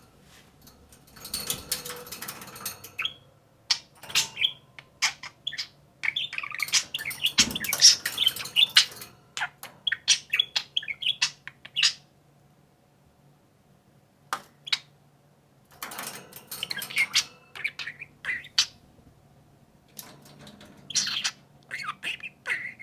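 Two budgerigars chattering and warbling in bursts of quick chirps and squawks, with short pauses between. Near the end one budgie mimics human speech, saying 'Are you a baby bird?'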